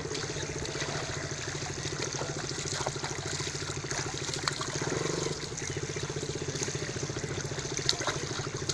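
Shallow river water trickling, with a few small splashes from a baby playing in it, over a steady low motor drone.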